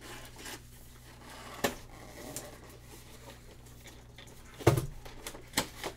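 Cardboard toy box being handled: soft scraping of cardboard with three sharp taps and knocks. The loudest knock comes near the end and carries a low thump.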